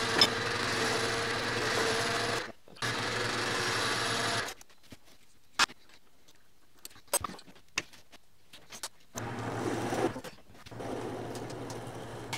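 Small metal lathe running while the end of a steel bolt, locked in the chuck with a jam nut, is turned down into a cup-point set screw. The lathe stops about four and a half seconds in, a few sharp metallic clicks follow as the part is handled in the chuck, and the lathe runs again from about nine seconds in.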